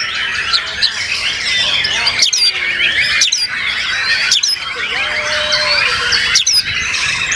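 Many caged songbirds singing at once, including white-rumped shamas: a dense, continuous chorus of overlapping whistles, trills and chattering, with sharp sweeping notes cutting through every second or so.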